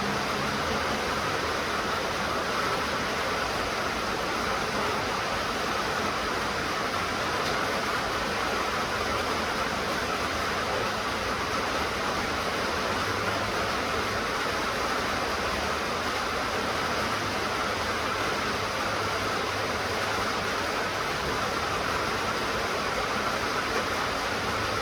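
Steady rainfall, an even hiss with no breaks or single drops standing out.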